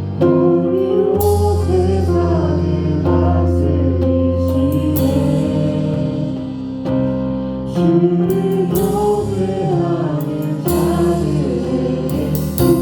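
Live church worship band playing a praise song: singers over sustained keyboard chords, bass and drums, with cymbal crashes every few seconds.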